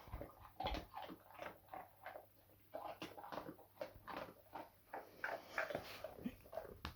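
Dog chewing, an irregular run of short clicks and wet smacks, several a second.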